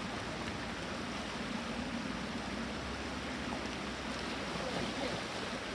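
Shallow rocky stream flowing over stones, a steady rushing.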